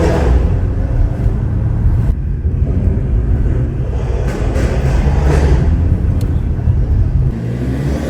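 Tuned BMW's engine and exhaust running under way, a loud deep steady rumble, with a few short sharp cracks about halfway through.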